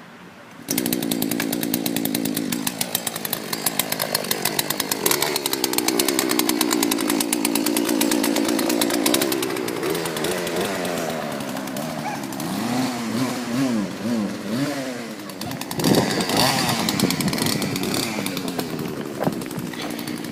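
Chainsaw engine starts abruptly about a second in, then runs and revs, its pitch rising and falling.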